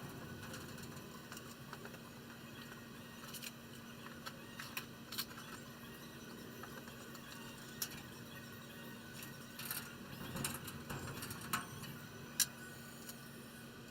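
Faint steady low hum with scattered light clicks and knocks, several of them in the second half.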